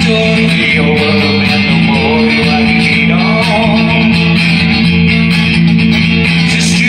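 Electric guitar played in steady chords, with a man singing his own slow song over it.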